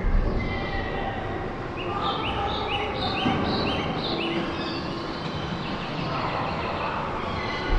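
Steady rumbling machinery or rail noise, with a run of short, rising high-pitched chirps, about three a second, in the middle.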